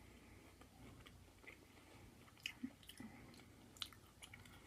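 Faint close-up chewing of food with the mouth, with soft wet clicks scattered irregularly through it.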